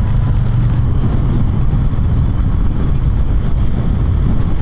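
Honda VFR800F's V4 engine running steadily while riding, with a dense low rumble of wind and road noise over the rider's camera microphone.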